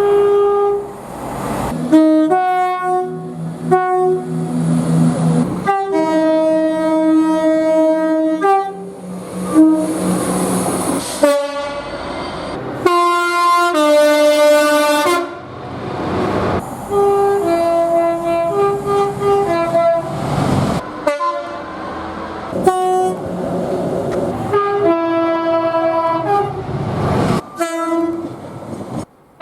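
Train horns sounded by a series of different trains, one after another. Each is a loud multi-note horn blast, many stepping between two pitches, with rumbling rail noise between some of the blasts. The sound changes abruptly every few seconds from one horn to the next.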